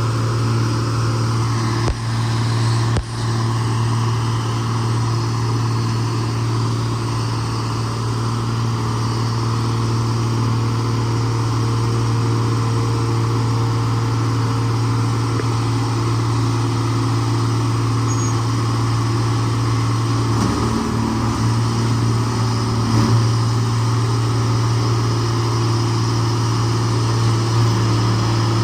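125B excavator's diesel engine running at a steady pitch as the machine travels on its tracks, with two brief knocks about two and three seconds in.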